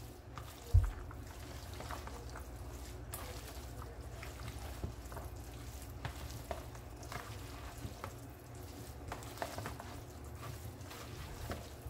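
Metal spoon stirring cheesy rotini pasta with sour cream and cream cheese in a plastic bowl: soft wet squishing with light scattered clicks of the spoon against the bowl, and a thump about a second in, over a low steady hum.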